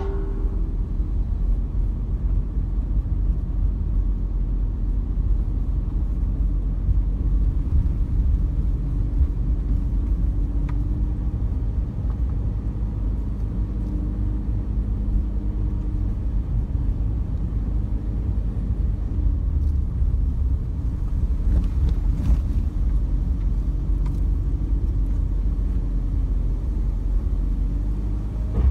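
Car driving: a steady low rumble of engine and road noise, with a faint engine note that drifts slightly up and down and a few faint ticks.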